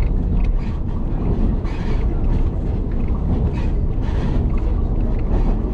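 White Pass narrow-gauge passenger train running: a steady low rumble of the car rolling on the rails, with wind buffeting the microphone.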